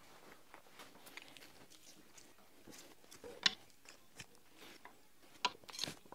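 Faint, scattered light clicks and clinks of small metal parts being handled, with a sharper click about three and a half seconds in and two more near the end.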